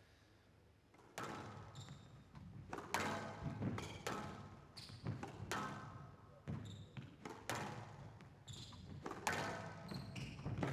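A squash rally: the ball cracked off rackets and smacked against the walls of a glass court, a sharp echoing hit roughly every second, starting about a second in.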